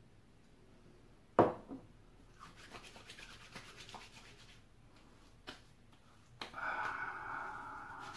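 A sharp knock about a second and a half in, then hands rubbing and patting splash-on aftershave onto the face and neck in quick rough strokes, growing louder and steadier near the end.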